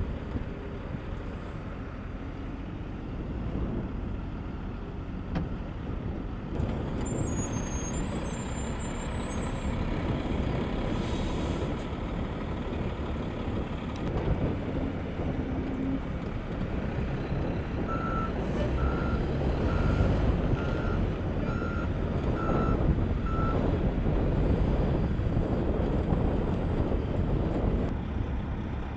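Diesel engines of a military rough-terrain forklift and trucks running. About two-thirds of the way in, a vehicle's reversing alarm sounds a run of about eight evenly spaced beeps.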